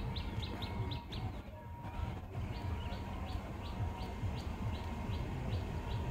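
A small bird repeating one short, high chirp over and over, about three to four times a second, breaking off for about a second shortly after the start before carrying on, over a steady low background rumble.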